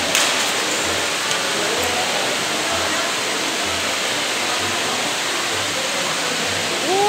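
Steady rush of water pouring and bubbling into a fish holding tank, with a faint low throb repeating about once a second.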